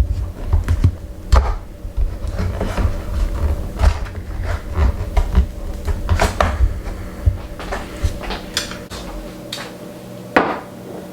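Kitchen handling noises: an irregular run of clicks and light knocks as items and packaging are moved about, over a low rumble of handling. The clicks thin out near the end, with one louder knock shortly before it stops.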